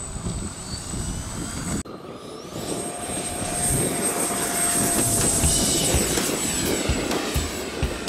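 Radio-controlled model Cessna's motor whining as it taxis, then, after a cut about two seconds in, a radio-controlled F-16 jet fighter model's high steady whine growing louder as it takes off. Wind buffets the microphone throughout.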